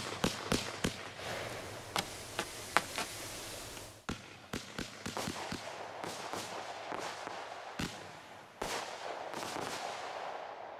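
Piromax Canis low-noise 'silent' firework battery (36 shots, 25 mm) firing: quick sharp pops and cracks over a steady hiss as its glittering comets and star bursts go up.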